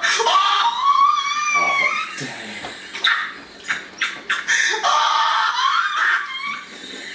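A man laughing hard: a long, high-pitched squealing laugh for about the first two seconds, breaking into short bursts of laughter.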